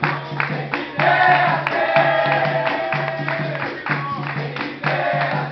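Capoeira roda music: a group singing over berimbau and pandeiro, with a steady low pulsing tone and even rhythmic strikes underneath.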